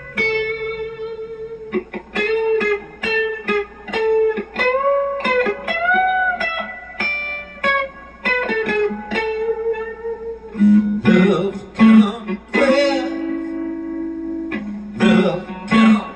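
Harley Benton Madcat Telecaster-style electric guitar played clean: a melodic line of single notes with string bends, changing about ten seconds in to strummed chords.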